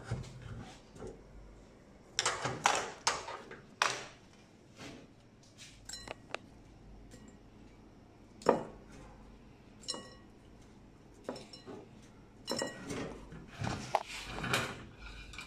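Kitchen dishes and utensils clinking and clattering: an uneven run of knocks and clinks, some ringing briefly. They bunch up about two to four seconds in and again near the end, with the sharpest single knock in the middle.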